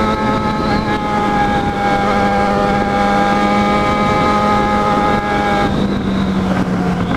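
Yamaha XJ6's 600 cc inline-four engine running at steady, moderate revs while riding, its pitch easing slightly down near the end.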